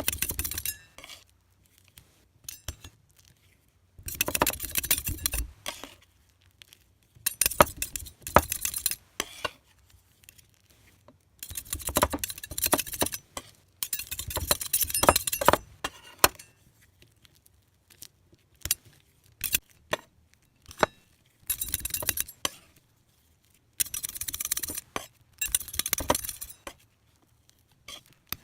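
Small hard objects clinking and rattling against each other, glassy in tone, in repeated bursts of a second or two separated by short pauses.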